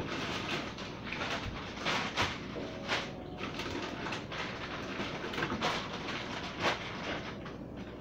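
Plastic bags rustling and containers knocking and clacking as food is handled and moved on refrigerator shelves, with a few sharper clacks among the rustling.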